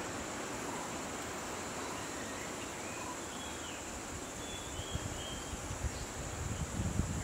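Insects droning steadily at a high pitch, with a few short high chirps scattered through and bursts of low rumble in the last couple of seconds.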